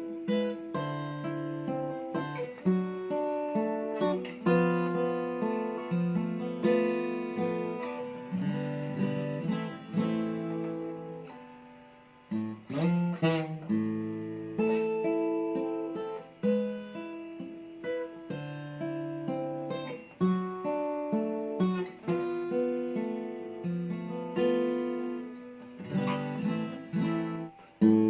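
SQOE Cranberries 41 acoustic guitar played fingerstyle: plucked arpeggiated chords and melody notes ringing out, with a short pause and a low note about twelve seconds in.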